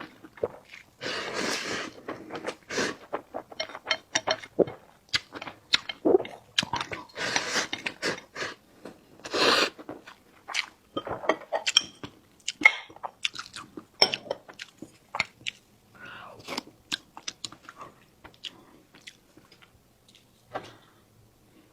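Close-miked eating sounds: wet chewing and crunching, made up of many short clicks and a few louder, longer noisy stretches, the loudest about halfway through, thinning out toward the end.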